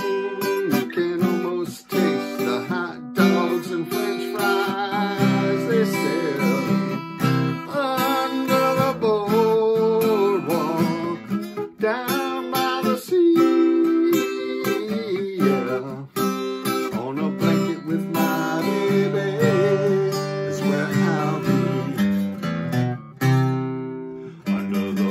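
Acoustic guitar strummed in a steady rhythm, with a man's singing voice over it at times.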